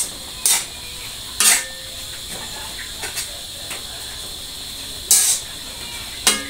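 A spatula scraping against a steel wok as water spinach is tossed in a stir-fry, about five scrapes at uneven intervals, over a steady sizzling hiss from the pan.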